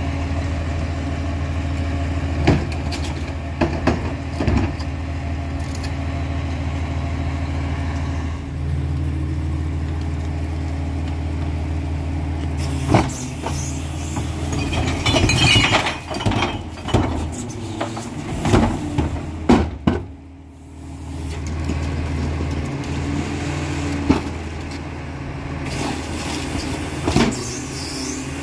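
A Peterbilt 348 garbage truck's diesel engine runs steadily behind a Heil Formula 5000 rear loader while plastic wheeled carts clank against the hydraulic cart tipper. About halfway through, a cart is lifted and tipped, and a clattering, rattling spill of trash falls into the hopper; the engine sound dips briefly just after.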